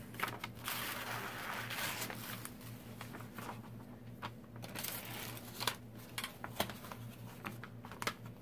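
Rustling and crinkling of a rolled diamond painting canvas and its plastic glue-cover film being handled and pressed flat, with scattered small crackles and clicks; the rustling is strongest about a second in.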